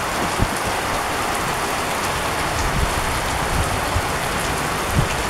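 Heavy rain falling steadily, an even hiss of rain on the surroundings, with a couple of brief low thumps, one near the start and one near the end.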